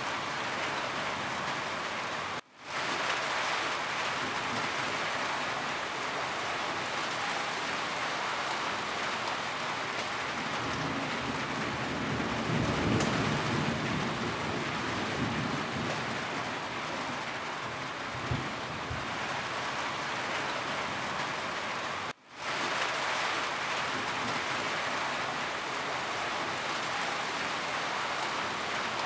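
Steady rain falling on a roof, an even hiss of drops. A low rumble swells and fades about halfway through. The sound cuts out for an instant twice, once about two seconds in and once near the three-quarter mark, then comes straight back.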